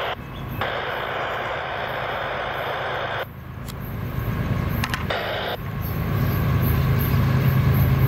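Low, steady engine rumble that grows louder over the last few seconds, with a hissing noise that cuts in and out abruptly several times.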